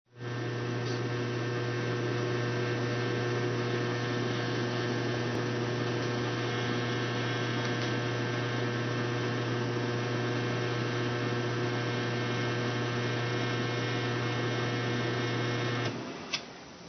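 Steady electrical hum: a loud low drone with many steady higher tones above it, cutting off suddenly about sixteen seconds in, followed by a single click.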